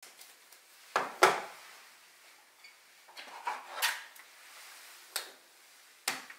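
Food storage containers with blue lids being handled, stacked and set down on a stone countertop: six short knocks and clinks, two close together about a second in, two more between three and a half and four seconds, then one each near five and six seconds.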